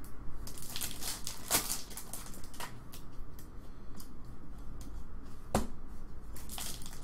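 Foil trading-card pack wrappers crinkling and cards being handled, an uneven run of crackles and clicks with a sharper snap about a second and a half in and another about five and a half seconds in.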